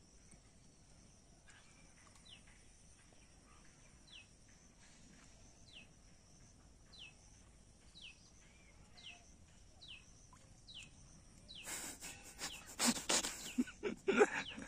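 A bird repeats a short falling whistle about once a second over a steady high-pitched insect drone. From about twelve seconds in, loud irregular knocks and rustling break in as the fishing rod is handled and struck.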